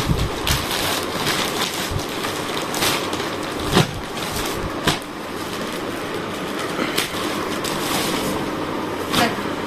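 Clear plastic packaging crinkling and rustling as a puffer jacket is handled and pulled out of it, with a few sharper crackles along the way.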